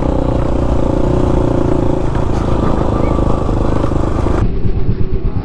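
KTM Duke 200's single-cylinder engine running steadily at cruising speed through a loud aftermarket Akrapovic exhaust. About four seconds in, the sound changes abruptly to a choppier, lower note.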